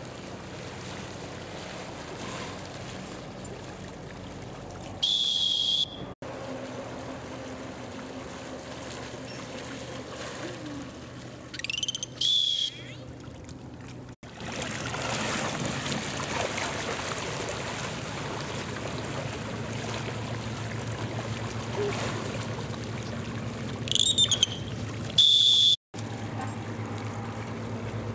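Water splashing and sloshing as a dolphin tows swimmers through the pool, with a high, steady whistle blown three times, short blasts of under a second each. The second and third blasts are led by quick rising chirps, typical of a trainer's pealess signal whistle.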